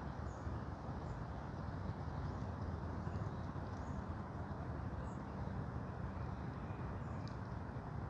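Forest ambience: a steady low rustling noise, with a few faint, short bird chirps high above it.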